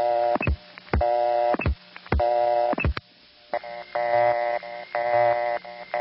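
Telephone busy signal from an old mechanical central-office tone plant: a buzzy tone switching on and off roughly once a second, with a sharp click as each burst starts and stops. The clicks fit a flashing busy signal, whose answer supervision goes off-hook and on-hook in step with the tone. About halfway through, the tone turns brighter and picks up a low hum.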